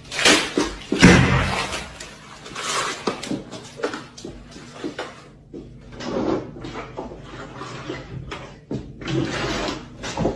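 Water sloshing and splashing in bursts, with repeated knocks and thuds, from a large plastic water jug being swung about.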